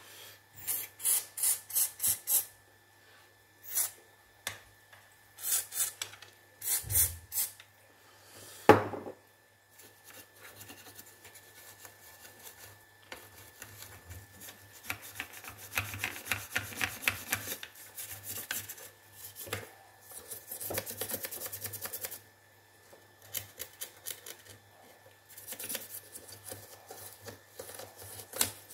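Rapid scraping strokes in short runs, by hand, against the corroded battery contacts of a wireless microphone as they are cleaned. One sharp knock about nine seconds in.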